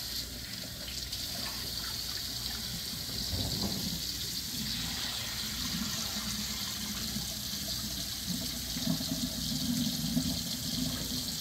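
Cold water running from a kitchen faucet into a plastic tub of walleye fillets in a stainless steel sink, with water sloshing and pouring out as the tub is tipped to drain the rinse.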